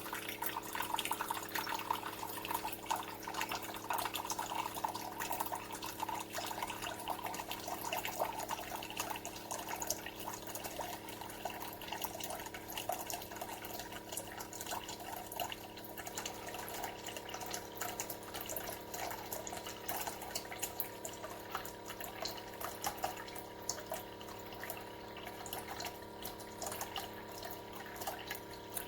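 Keurig K-Café single-serve coffee maker pouring a steady stream of water into a cup, splashing and trickling. It starts dispensing unprompted as soon as it is switched on, a fault that will drain the whole water tank.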